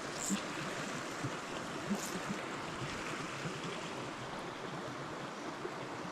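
Small mountain stream running over rocks with a steady rush of water. Two faint ticks come near the start and about two seconds in.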